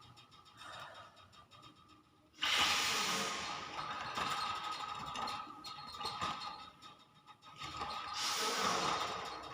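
Hill myna making two breathy, hiss-like noises: one starting suddenly about two and a half seconds in and fading over about a second, the other near the end, over faint steady tones.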